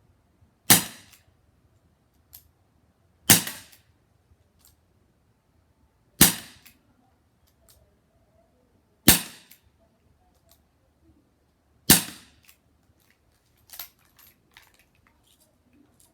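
Crosman SNR 357 CO2 air revolver firing five sharp shots about three seconds apart, then a much weaker pop near the end, with small mechanical clicks in between. The weaker pop fits the CO2 cartridge running low, which the shooter thinks is almost gone.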